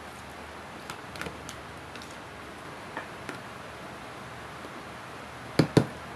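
Kitchen handling noises while a marinade is prepared: a few light clicks and taps, then two loud knocks in quick succession near the end, like containers or utensils being knocked or set down on a counter.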